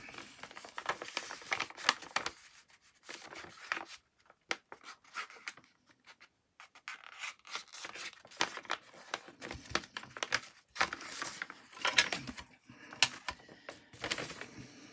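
Sheets of craft paper being handled: scattered rustling and rubbing, with short quiet pauses between.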